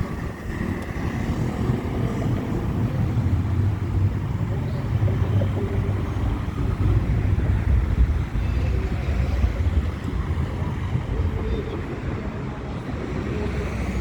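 City road traffic: a steady low rumble of passing vehicles, picked up on a phone microphone.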